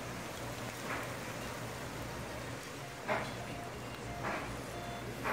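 A hailstorm: a steady, even hiss of hail and rain coming down, with a few faint taps.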